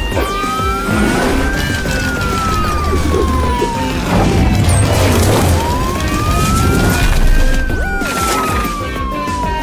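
Cartoon police siren wailing, its pitch rising for a second or two and then sliding slowly down, twice over, with background music and a bass beat underneath.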